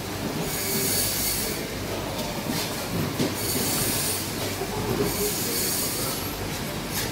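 Whole frozen tuna dragged across wet wooden boards, squealing three times, about a second each, with a few low knocks from the heavy fish in between.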